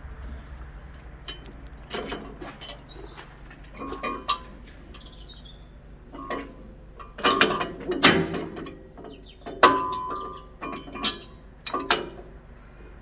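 Steel parts of a tractor front loader's parking stand clanking and clinking as the legs are folded up by hand: a series of separate metal knocks, some ringing briefly, the loudest cluster in the middle.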